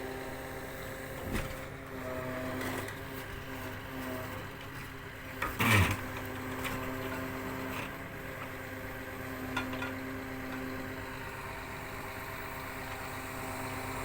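Engine of a block machine running steadily. A loud clank comes about six seconds in, with a few lighter knocks around it.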